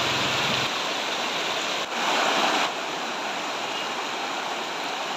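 Fast floodwater rushing in a strong current through yards and along a road: a steady rush of water, its tone shifting abruptly where clips are cut, about two-thirds of a second, two seconds and nearly three seconds in. A low hum sits under the water in the first moment.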